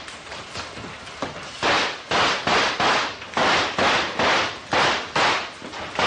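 A rapid volley of stormtrooper blaster shots, about a dozen sharp noisy cracks at roughly two a second.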